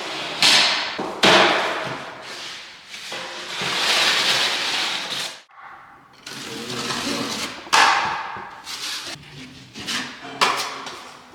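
Repeated scraping and rubbing strokes with a few sharp knocks, from hand work on drywall.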